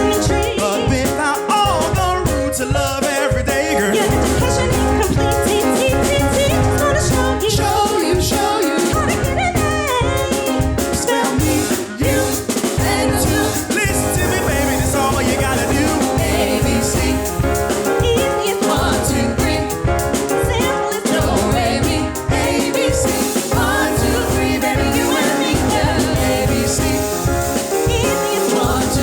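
A vocal ensemble singing a song with band accompaniment, drums keeping a steady beat.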